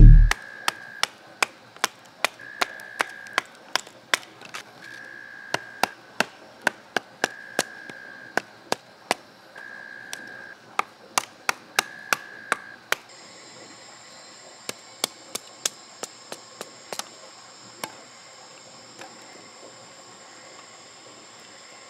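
Rapid, repeated sharp strikes of a tool chopping wood, two or three a second in short runs, with a heavy thump at the very start; the strikes thin out and stop a few seconds before the end. A short pulsing high tone comes and goes during the chopping, and a steady high-pitched drone of insects takes over from about halfway through.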